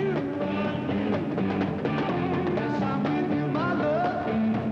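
Rock music recording playing, a full band with steady sustained notes and some sliding pitches.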